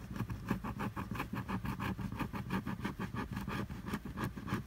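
A coin scratching the coating off a paper scratch-off lottery ticket in quick, even back-and-forth strokes, several a second.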